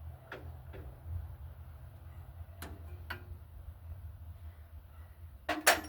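A wrench clicking against a tractor's battery cable terminal bolt a few times, then a louder knock near the end, over a steady low hum.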